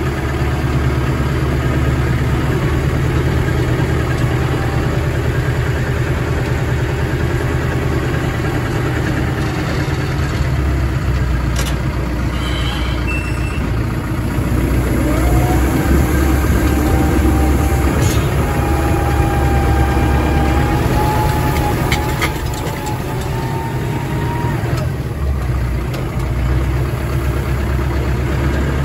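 A heavy engine of farm machinery running steadily at constant speed, with a faint whine that climbs slowly in pitch through the middle and a few sharp clicks.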